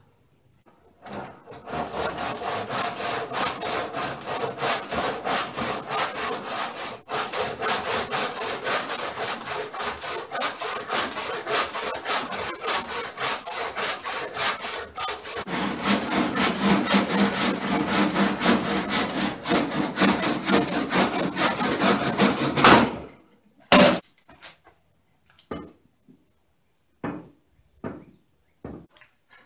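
Hand saw cutting through a wooden tree branch used as a new axe handle, held in a vise: steady back-and-forth strokes, about three a second, that stop suddenly about 23 seconds in. A few scattered knocks and taps follow.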